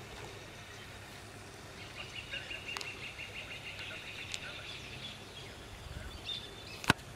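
Guira cuckoo calling: a fast, even run of high notes lasting about two and a half seconds, followed by a few scattered shorter calls, over a steady low hum. A single sharp click near the end.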